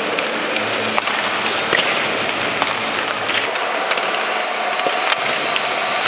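Ice hockey warm-up on the rink: skates scraping across the ice and scattered sharp clacks of pucks striking sticks and boards, over a steady wash of arena noise.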